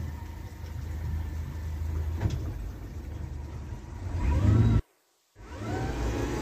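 50 hp Mercury outboard motor running steadily with a low rumble, with a single knock about two seconds in. The sound cuts out briefly a little before the end.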